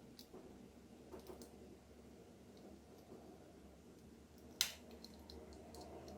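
Faint clicks and light handling noises, with one sharp click about halfway through.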